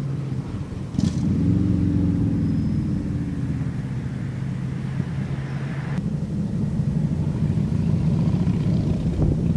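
Harley-Davidson Street Glide's Twin Cam 103 V-twin running through Rush Big Louie slip-on mufflers with the baffles removed: a loud, low, uncorked exhaust note. About a second in it jumps suddenly louder with a sharp click, the pitch swells and settles, then it runs steadily.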